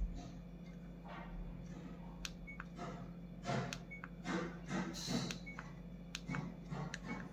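Wolfang GA100 action camera's buttons pressed repeatedly to step through its menus: sharp clicks, several of them followed by a short high beep at the same pitch each time, with some handling noise of the plastic camera and housing.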